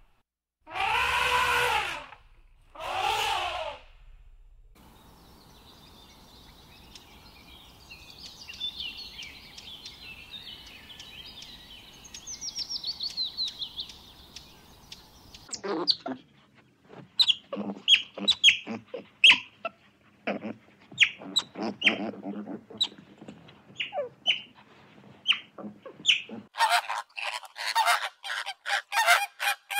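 Two loud elephant calls in the first few seconds, then high bird chirps over a faint hiss, then a run of sharp, short calls. Near the end a flamingo flock starts honking rapidly.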